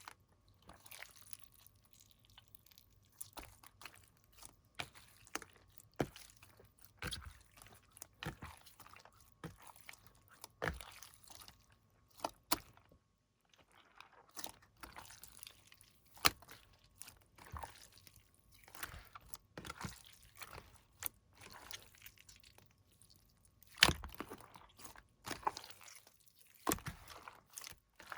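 Slime being squeezed and pressed by hand, giving irregular crackles, pops and squishes with short pauses between them.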